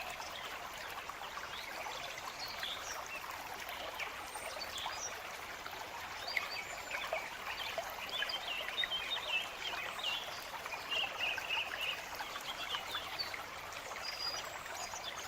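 Small stream trickling and babbling steadily, with birds chirping over it in quick short notes, busiest about halfway through.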